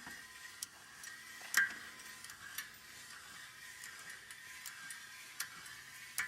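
Sharp metallic clicks and ticks, roughly one a second, the loudest about one and a half seconds in. They come from a Ringmaster tire tool as its speed handle is cranked, turning the threaded push bar that presses a loader tire and ring assembly onto the wheel.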